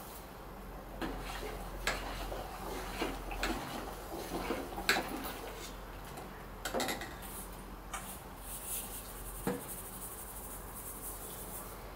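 Steel ladle knocking and scraping against a stainless steel pot while ground flattened rice is stirred into hot water, with about half a dozen sharp clinks spread across the stirring. A soft hiss comes in over the last few seconds.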